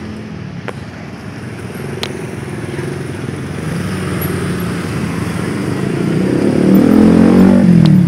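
A motorbike engine passing on the street, growing louder over several seconds and loudest near the end, its pitch falling as it goes by.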